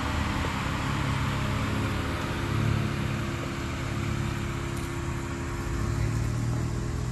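Vehicle engine running steadily at low revs during slow off-road crawling. Its pitch lifts slightly about two and a half seconds in and again around six seconds. A steady rushing noise sits over it.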